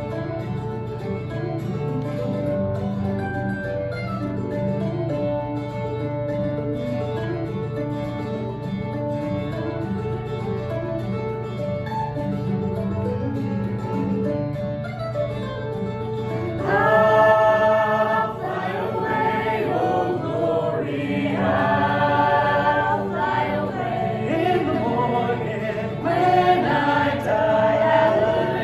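Gospel music with guitar accompaniment. Singing voices come in about two-thirds of the way through and carry on to the end.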